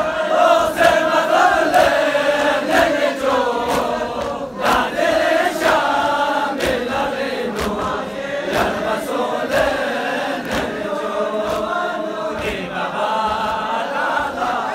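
Crowd of men chanting a Muharram mourning lament (nauha) in unison, with sharp slaps of hands on chests (matam) keeping time about once a second.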